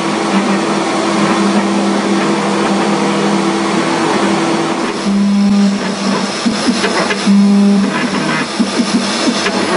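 ShopBot desktop CNC router's high-speed spindle running with the bit cutting into wood: a steady hum with cutting noise over it. About halfway through the sound turns uneven, with two short surges.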